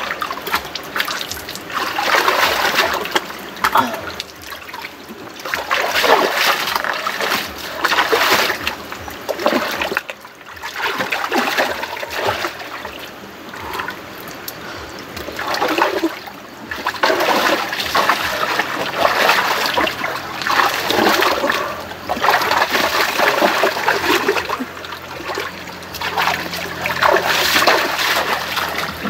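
Hands splashing and sloshing in shallow stream water in irregular bouts, with quieter stretches between. Near the end come quick splashes of feet running through the water.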